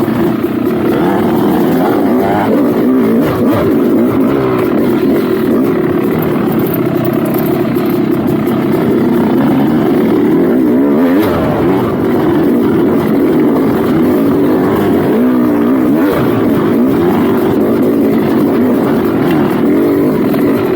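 Dirt bike engine running hard under a rider on trail, its pitch rising and falling repeatedly as the throttle is worked.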